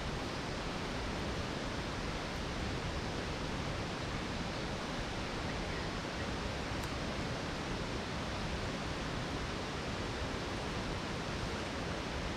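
Steady rushing of a nearby waterfall, an even wash of falling water with no breaks.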